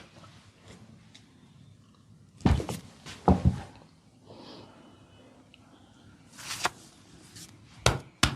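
Hands working over a person's body during a massage: a handful of sharp slaps and thumps. The loudest pair comes a little over three seconds in, with more hits near the end.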